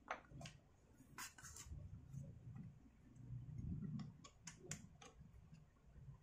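Faint clicks and taps of the plastic housing parts of a Stihl MS250 chainsaw being handled and fitted by hand: a few in the first second and a half, then a quick run of about five between four and five seconds in, over a low rustle of handling.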